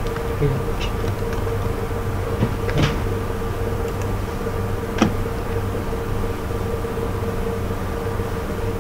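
Computer keyboard keys clicking as a file name is typed, then a sharper mouse click about five seconds in, over a steady background hum.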